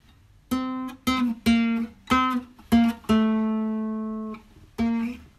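Solo guitar playing a slow melody of single plucked notes, a few bent in pitch, with one note held for over a second about three seconds in.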